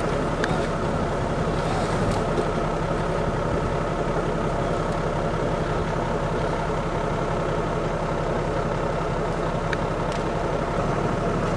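Off-road 4x4 engine running steadily under load as it climbs a steep, rocky slope, with a few faint ticks over it.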